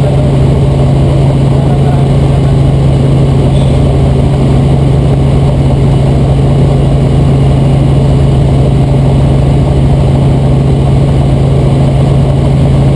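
Robinson R44 Raven II helicopter in cruise flight, heard from inside the cabin: the Lycoming six-cylinder engine and rotors make a loud, steady drone with a strong low hum that does not change.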